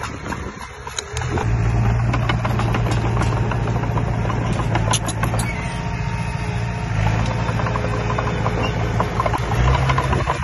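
Diesel engine of a piece of heavy earthmoving equipment running steadily under load, with scattered clanks and knocks. The engine sound drops briefly near the start and picks up again about a second in.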